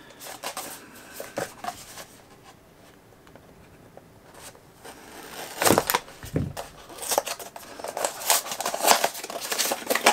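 A small cardboard blind box being handled, then slit open with a knife and torn apart, with crinkling packaging. A few light clicks come first, then a quiet spell, then from about halfway a run of loud cutting, tearing and crinkling.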